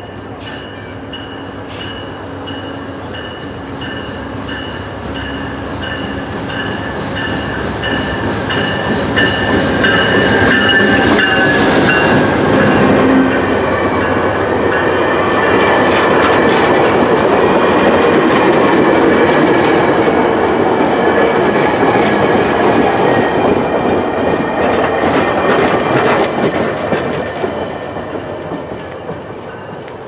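VIA Rail passenger train led by a GE P42DC diesel locomotive approaching and passing close by. Thin steady high tones carry while it is still distant. The sound builds to a loud rush of engine and rolling stainless-steel cars with wheel clatter from about ten seconds in, then fades as the train goes away near the end.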